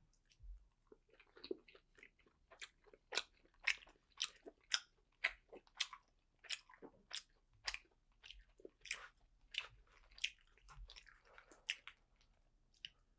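A person chewing a mouthful of steamed dumpling close to the microphone, with wet mouth clicks about twice a second.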